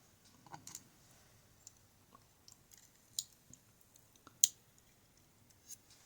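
Scattered small metal clicks and ticks of lock parts and tools being handled while the lock is taken apart, irregular and faint, with the sharpest click about four and a half seconds in.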